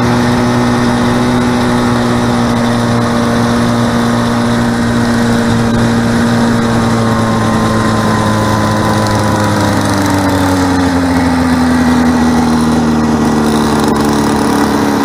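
Snowmobile engine running steadily as the sled rides across the snow. Its pitch drops about two-thirds of the way through as the sled slows.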